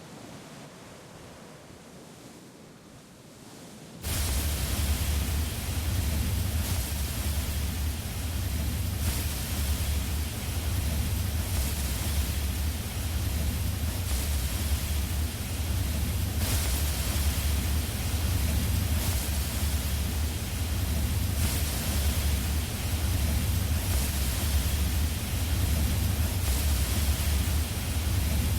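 A faint hiss, then about four seconds in a loud, steady rushing noise with a deep rumble cuts in and holds.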